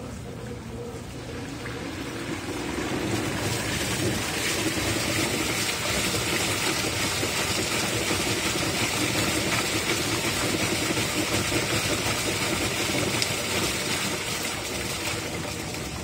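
Top-loading washing machine churning its load in soapy water, the basket whirling and the water swirling and splashing over the machine's motor. The churning grows louder about two to three seconds in and eases off near the end.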